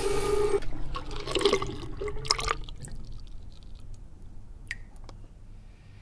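Tap water running and splashing over hands in a ceramic sink, stopping about two and a half seconds in as the tap is shut off, followed by a few single drips.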